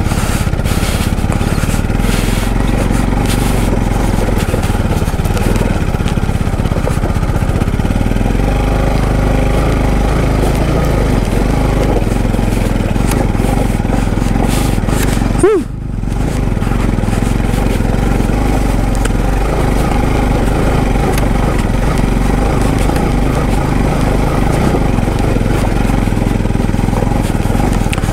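Motorcycle engine running steadily at low speed on a rough rocky trail, with clicks and rattles from the bike over the stones in the first several seconds. About halfway through there is one brief sharp sound, after which the sound dips for a moment.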